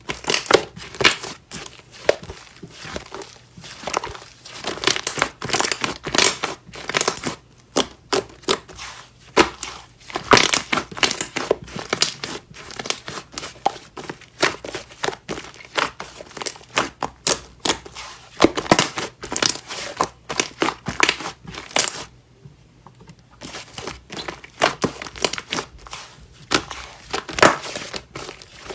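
Slime being squeezed and poked by hand, a dense, irregular run of crackling, popping clicks with a short lull about three-quarters of the way through.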